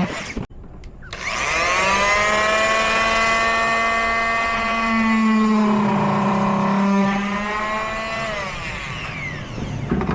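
Handheld power tool cutting plastic. It spins up about a second in and runs steadily, its pitch dropping under load for a couple of seconds midway, then winds down near the end.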